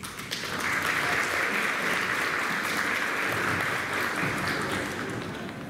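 Audience applauding: a dense clapping that rises about half a second in and tapers off near the end.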